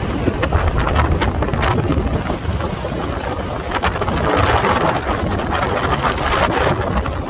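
Wind buffeting the microphone on a moving vehicle, over a steady low engine rumble.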